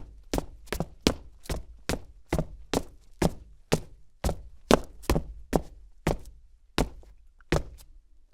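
Footsteps of boots walking on cement, each step a hard heel-and-sole strike, about two a second, slowing slightly near the end.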